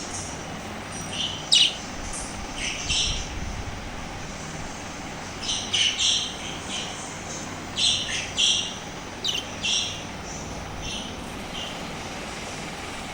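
Small pet parrots chirping and squawking in short, sharp calls that come in scattered clusters, over a steady background hiss.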